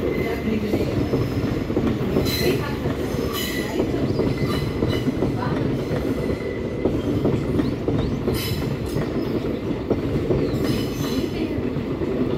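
Passenger coaches of an express train rolling past: a steady rumble of wheels on the rails, with a few brief high-pitched wheel squeals.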